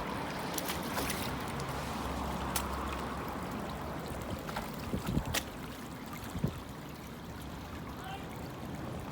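Wet, deep mud squelching and sloshing under feet and a basin, with a few sharp clicks and a couple of dull thumps about five and six and a half seconds in.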